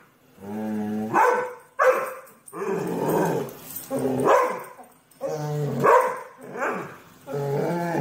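A dog barking and growling at a robot vacuum cleaner: about seven low, drawn-out woofs, roughly one a second, each rising sharply at its end.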